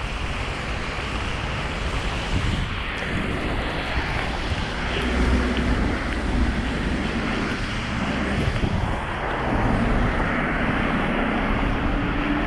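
Street traffic in a snowstorm, with a vehicle engine droning past from about five seconds in, over wind buffeting the action camera's microphone.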